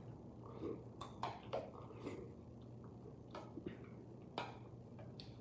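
Spoon tapping and scraping in a dish while eating: a few faint, scattered clicks and taps over a low steady hum.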